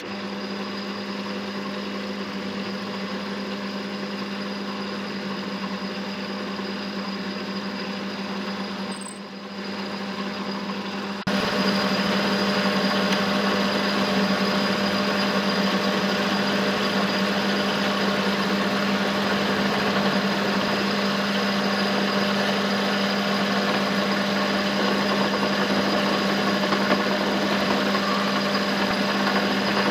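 Metal lathe running, turning down a cast aluminium-bronze part: a steady motor and gearing hum with the noise of the cut. It steps up abruptly in level about eleven seconds in.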